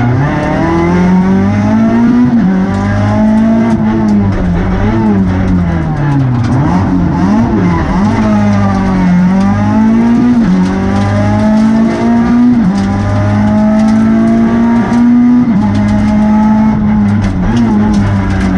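Renault Twingo R2 rally car's 1.6-litre four-cylinder engine heard from inside the cabin at racing speed. The engine note climbs and drops again and again: quick climbs cut off by sudden drops at the upshifts, and longer falling runs where the car brakes and shifts down for corners.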